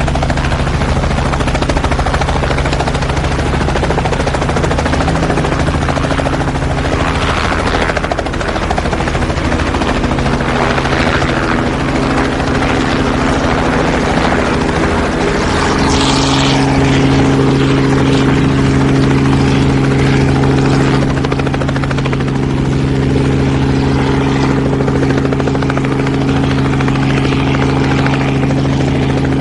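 Helicopter in flight heard from inside the cabin: a steady engine and turbine hum over the rapid chop of the rotor. About halfway through the engine tone grows stronger and steadier.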